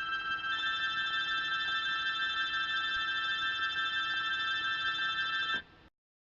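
A steady chord of several high-pitched tones held without change, with a few more tones joining about half a second in; it cuts off suddenly near the end, leaving dead silence.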